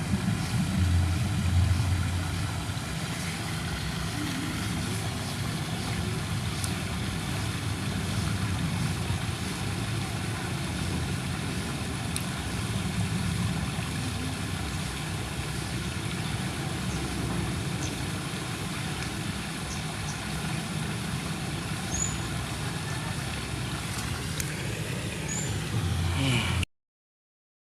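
A motor vehicle's engine running steadily, a low continuous rumble.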